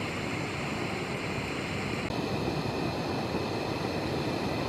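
Steady rushing of the Hoh River's flowing water, an even wash of noise with no breaks.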